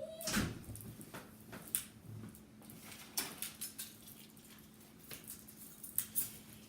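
A small pack of board-game pieces being opened by hand: scattered crinkles and small sharp clicks of packaging, with a few louder snaps about a third of a second in, near two seconds and twice near the end.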